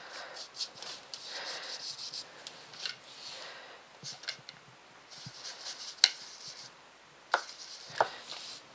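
Paintbrush rubbing paint in short, scratchy strokes, the bristles scrubbing on textured watercolour paper. A few sharp clicks in the second half.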